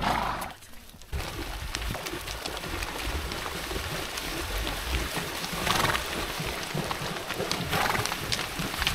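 Water splashing and sloshing with many small clicks and knocks, starting suddenly about a second in and swelling briefly twice.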